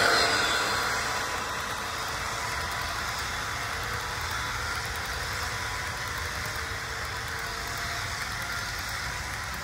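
HO scale model train running past close by: the motor of the VL80 model electric locomotive sweeps by loudest at the start, then the coaches' metal wheels roll steadily along the track with a low rumble.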